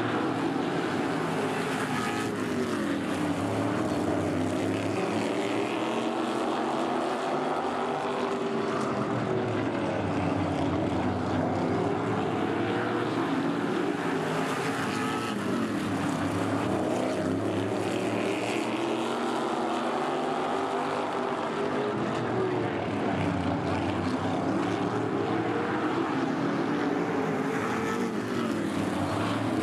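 Several modified race cars' V8 engines running at racing speed around a short oval, the engine pitch climbing and dropping in a repeating cycle about every six to seven seconds as the pack laps.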